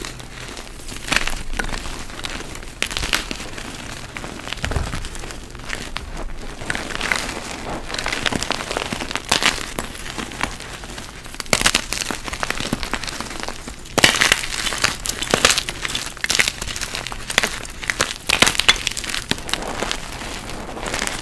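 Blocks of dyed gym chalk being crushed, giving irregular crunching and crackling as they crumble to powder, with denser runs of crunches midway and in the second half.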